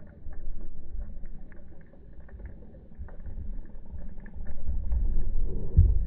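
Underwater ambience in a surging swell over a coral reef: a muffled low rumble of moving water that swells and eases, loudest near the end, with a scatter of faint crackling clicks.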